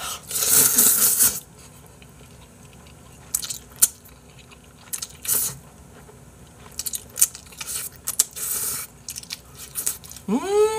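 A person slurping Buldak spicy stir-fried ramen noodles and chewing. There is one loud slurp about half a second in, then shorter slurps and mouth clicks. Near the end a short pitched sound rises and falls.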